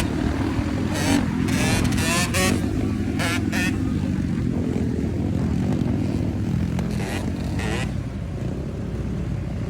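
Yamaha YZ125 two-stroke motocross bike engine running steadily.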